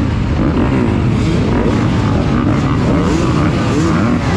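Several dirt bike engines revving up and down at once, their pitches rising and falling over one another.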